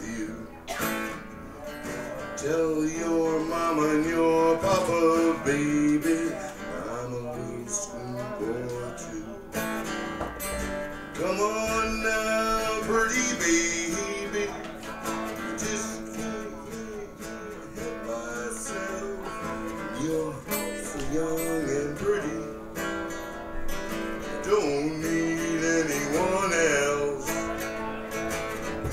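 Acoustic guitar played live, strummed and picked in an instrumental passage of a song, with no singing.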